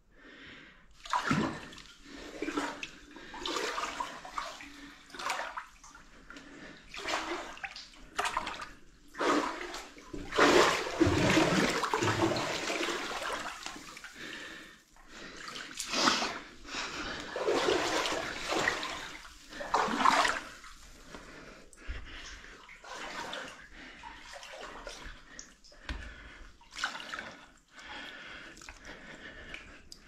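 Shallow water sloshing and splashing in irregular surges as a person crawls through it, loudest in the middle of the stretch.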